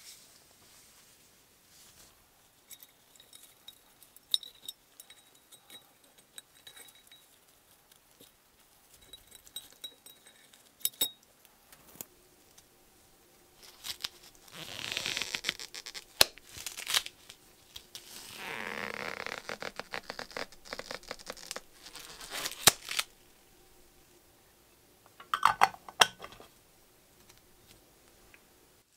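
Purple nitrile gloves being handled and peeled off the hands: rubbery rustling and stretching with small clicks and taps, and two longer spells of rustling about halfway through.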